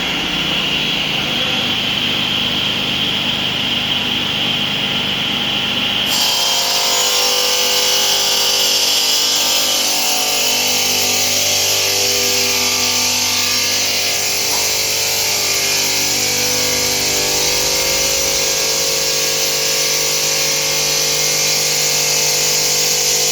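Electric stone-working machine running steadily, a motor hum with several steady tones under a hiss. About six seconds in the sound changes suddenly and a much stronger high hiss comes in.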